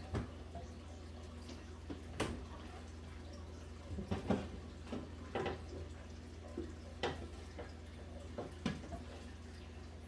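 Ceiling fan motor humming low and steady as it cycles between forward and reverse without getting up to speed, a fault the owner suspects lies in the motor. Scattered light clicks and taps come at irregular moments over the hum.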